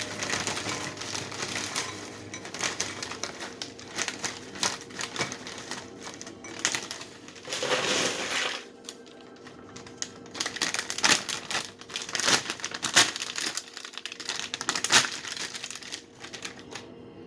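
Doritos chip bag crinkling and rustling as it is handled and a hand reaches in for chips, with many sharp irregular crackles.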